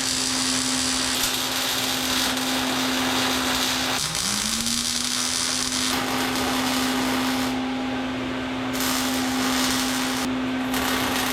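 Angle grinder running steadily while smoothing welded seams on steel. About four seconds in, its pitch drops sharply and climbs back up as the motor recovers speed.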